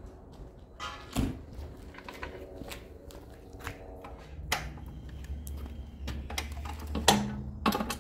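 Scattered light knocks and clicks of hands and parts being handled on a generator frame, with a low steady hum starting about halfway through.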